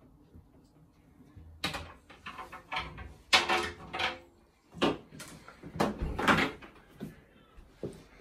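A run of irregular knocks and bumps with rustling, starting about a second and a half in, several of them sharp and loud.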